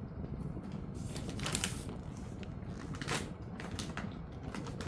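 A Jindo-mix dog chewing a treat, with irregular sharp crunches and crackles.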